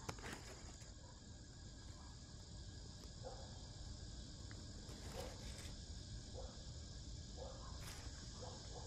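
Insects chirring steadily in a high, even drone, with a few faint soft short sounds at irregular intervals and a brief click about eight seconds in.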